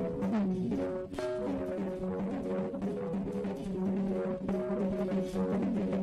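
Church worship music: held chords in a brass-like tone, changing every second or so, over drums.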